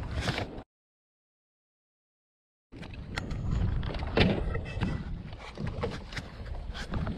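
Wind rumbling on a helmet-camera microphone and water splashing against a stopped jet ski, with irregular knocks. The audio cuts to complete silence about half a second in and comes back about two seconds later.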